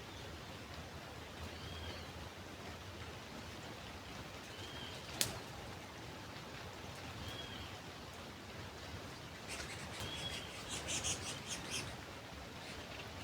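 Birds calling over a steady outdoor hiss: one bird repeats a short, arched whistle about every three seconds, and a burst of rapid high chirps comes in near the end. A single sharp click sounds about five seconds in.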